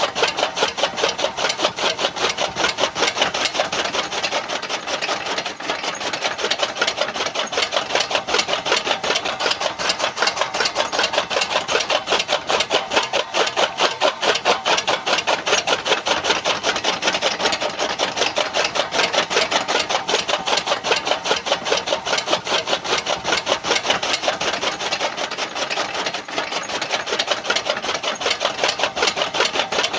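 Miniature DIY chaff cutter running, making a fast, steady rasping rhythm of rapid strokes.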